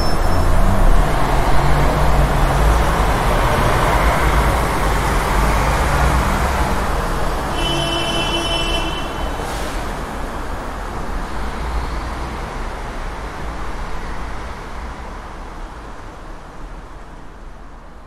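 Busy street traffic: a steady rumble of vehicle engines and tyres, with a short high-pitched tone about eight seconds in and a brief sharp sound just after it. The traffic gradually fades out over the last several seconds.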